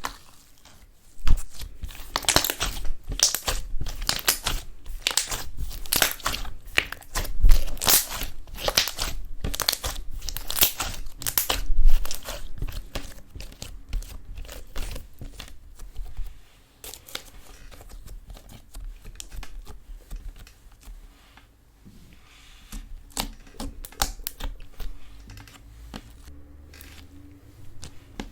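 Eyeshadow slime being squished and pressed by hand, a dense run of sticky clicks and pops. It is loudest over the first half and turns softer and sparser after about sixteen seconds.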